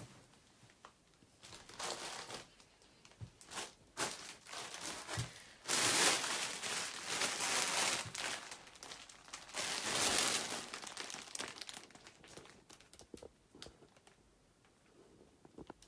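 Embroidered dress fabric rustling and crinkling as it is handled and laid out, in uneven bursts, loudest in a long stretch about six seconds in and again about ten seconds in.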